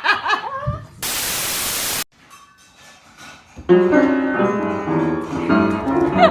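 A short pitched sound, then a one-second burst of loud white-noise static that cuts off abruptly, a near-quiet lull, and piano music that starts about two-thirds of the way in.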